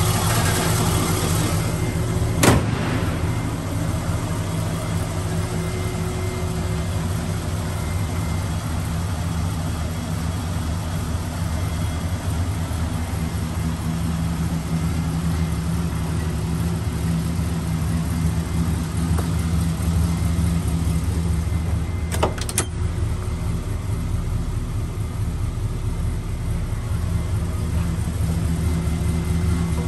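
Fuel-injected 350 cubic-inch Oldsmobile V8 with dual exhaust idling steadily. A sharp click sounds about two and a half seconds in, and a couple more come about twenty-two seconds in.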